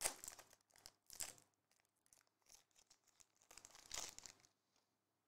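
Foil trading-card pack being torn open and crinkled by hand, in three short bursts: at the start, about a second in, and around four seconds in.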